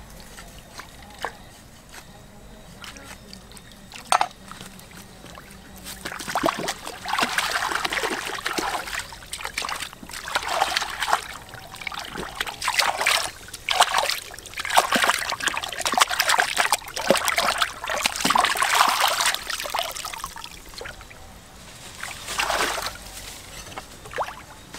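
Water splashing and sloshing in irregular bursts as a large scored fish is washed by hand in shallow river water, starting about six seconds in and dying down near the end. A few sharp single knocks come before the splashing.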